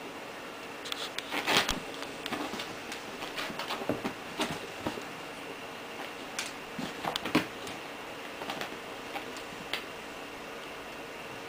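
A young kitten's claws and body scratching and rustling on a chair seat as it plays: scattered light scrapes and clicks over a steady hiss, bunched about a second in, around four seconds and around seven seconds.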